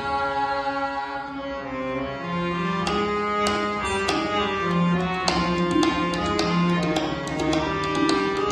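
Harmonium playing sustained notes, with tabla coming in after about two seconds and playing a steady pattern of deep bass strokes and sharp strikes.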